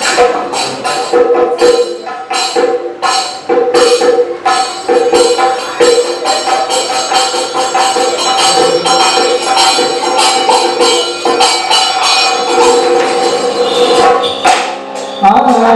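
Traditional Kerala stage-performance music: metal hand cymbals struck over and over in a quick rhythm above steady held tones. A new, lower held note comes in near the end.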